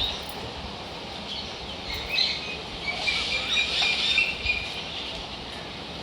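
Birds chirping in short, high calls, busiest in the middle, over steady outdoor background noise.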